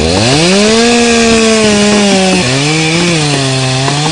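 Electric trolling motor whining as it spins up, its pitch rising smoothly over about a second and holding, then dropping a step about two and a half seconds in as the motor changes speed.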